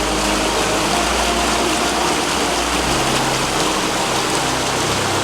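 Waterfall rushing, a loud steady hiss of falling water, with a faint low hum beneath it.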